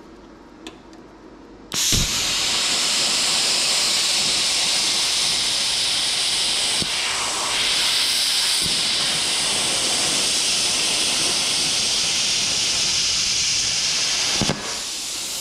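CUT50 plasma cutter cutting 18-gauge sheet steel: a loud, steady hiss of the arc and air jet that starts suddenly about two seconds in and dips briefly near the end.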